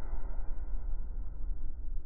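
Steady low road rumble heard from inside a moving car, with a wash of higher noise that fades away over the first second.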